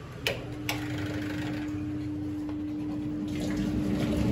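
Evaporative air cooler being switched on: two clicks, then its fan motor starts with a steady hum. The rush of air grows louder as the fan comes up to speed.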